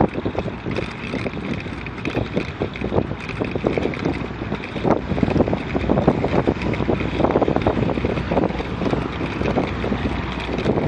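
Wind buffeting the microphone of a camera on a moving bicycle, with many irregular knocks and rattles as the bike rolls over a rough gravel path.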